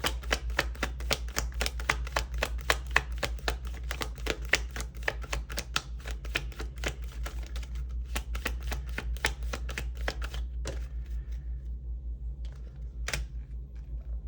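A tarot deck being shuffled by hand: a rapid run of card clicks, several a second, that thins out after about ten seconds to a few separate snaps.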